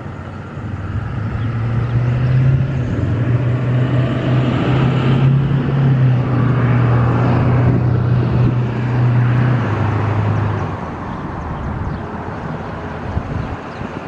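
A road vehicle passing by: a low engine hum swells over a couple of seconds, holds, drops slightly in pitch about ten seconds in, then fades.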